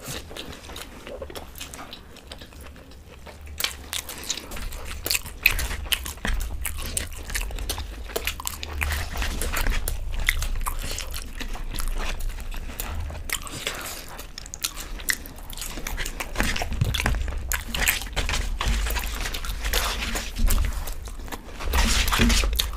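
Close-miked eating sounds of two people: chewing and biting mouthfuls of paratha and sabzi, with scattered sharp clicks of mouths and fingers picking food from plates.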